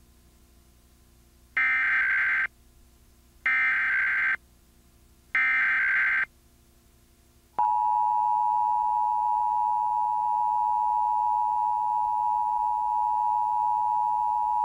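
Emergency Alert System tones: three short bursts of the SAME digital header, each just under a second and about a second apart, marking the start of a required monthly test. Then the steady two-tone EAS attention signal (853 and 960 Hz together) starts about half a second after the last burst and holds.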